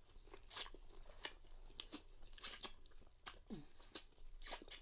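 Close-up eating sounds: biting into corn on the cob and chewing, with irregular wet smacks and mouth clicks.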